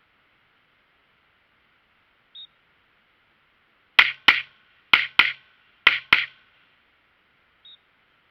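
Six gunshots fired as three quick double taps, the two shots of each pair about a quarter second apart and about a second between pairs. A short faint beep sounds before and after the string.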